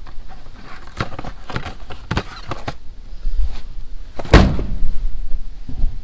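Boxed filters being handled and pulled off a metal parts shelf: a run of knocks and scrapes, with one louder thump a little past four seconds in.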